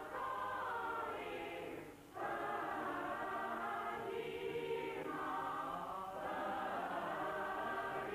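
Choir singing long held chords, with a brief break between phrases about two seconds in.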